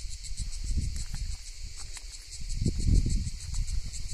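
Steady, evenly pulsing high chirr of insects in the summer heat, with irregular low thumps and rumble from the walking cameraman and wind on the microphone, loudest about three seconds in.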